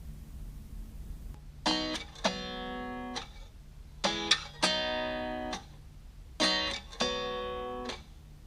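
Acoustic guitar strumming chords in a repeating pattern of two strums, each left to ring, starting about a second and a half in after a brief stretch of faint hiss.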